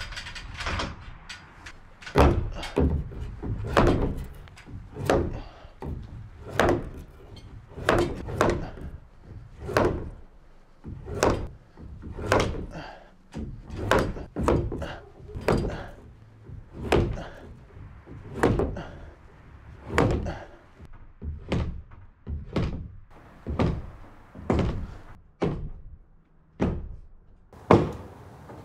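Repeated sledgehammer blows on a wooden LVL ridge beam, dull thuds about one to two a second, driving the beam so it slides along its supports into place.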